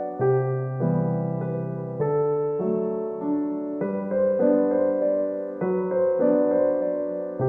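Background music: a gentle piano tune playing chords and notes in a steady, regular rhythm.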